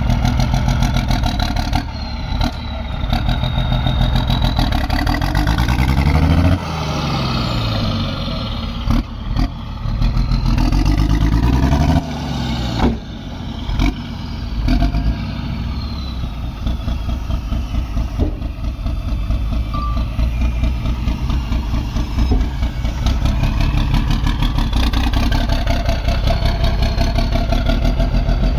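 Heavy diesel earthmoving machinery, a crawler bulldozer working alongside dump trucks, running under load, with the engine note repeatedly rising and falling. Several sharp knocks and clanks come through, with a faint high whine over the top.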